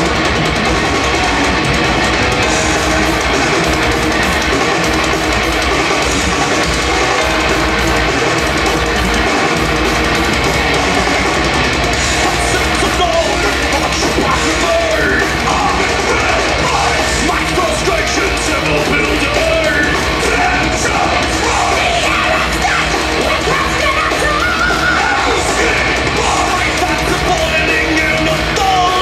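Heavy metal band playing live at full volume: distorted electric guitars, bass and pounding drums. A singer's voice comes in about twelve seconds in and carries on over the band. Recorded from the audience.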